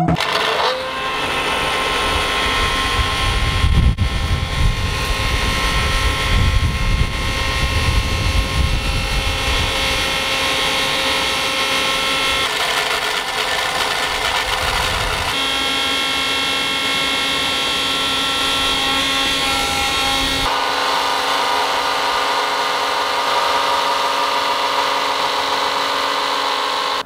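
Electric blender motor running steadily, its pitch changing abruptly a few times, with a heavy low rumble through the first half.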